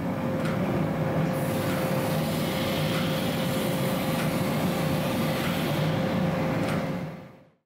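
Gas-fired forge running steadily, its burner noise joined by a constant hum, with a few light knocks; the sound fades out near the end.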